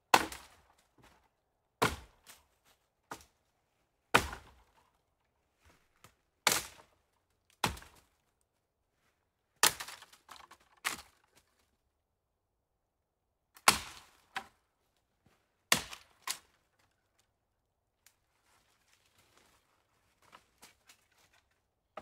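Footsteps on a forest floor: slow, uneven crunching steps on dry leaves and twigs, about one every one to two seconds, with fainter rustling near the end.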